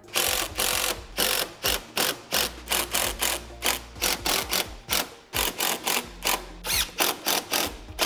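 Cordless impact driver hammering in many short bursts, about three a second, running in the bumper fasteners.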